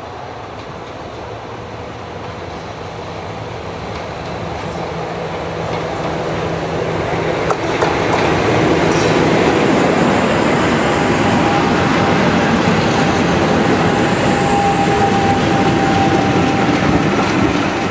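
Two British Rail Class 50 diesel locomotives, each with an English Electric 16-cylinder diesel engine, approaching under power. The sound grows steadily louder over the first eight seconds, then becomes a loud, steady roar as they pass close by. A thin steady whine sits on top of the roar from about eleven seconds in.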